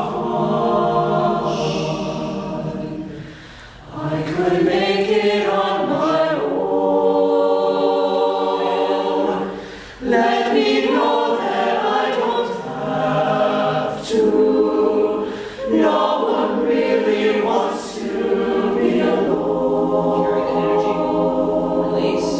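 Mixed-voice show choir singing in harmony: long held chords sung in phrases, with brief breaks between them.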